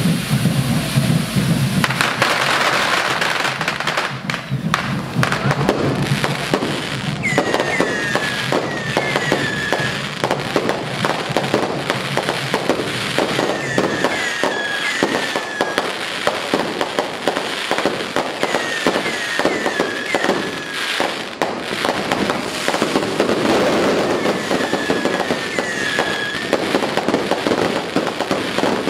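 Fireworks going off in a dense, continuous crackle of bangs and pops, with short falling whistles every few seconds.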